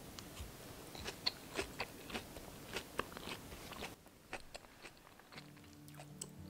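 Crisp, batter-fried tofu in sweet and sour sauce making small, irregular crunches and crackles, dying away about four seconds in.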